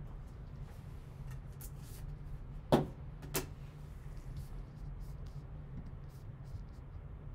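Two sharp plastic clicks from a hard plastic trading-card case being handled and set down on a table. The first, nearly three seconds in, is the louder; the second comes about half a second later. A steady low hum runs underneath.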